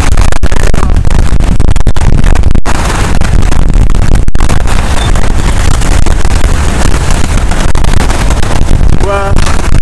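Strong wind buffeting the microphone in a loud, continuous rumble, over the wash of waves breaking on the rocks.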